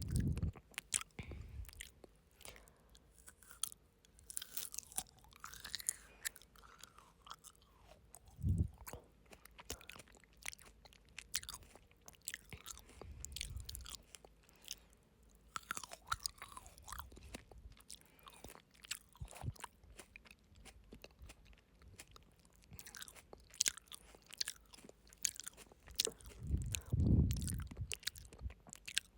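Close-miked chewing and crunching of frozen grapes, with many small sharp crackles and wet mouth clicks. A heavy low thump comes about eight seconds in, and a longer low rumble comes near the end.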